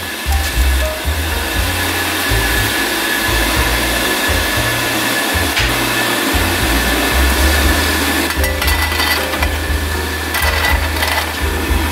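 Background music with a bass line over a steady rushing noise. From about eight seconds in come bursts of rattling as soaked mung beans are poured from a metal strainer onto parchment paper in an air fryer basket.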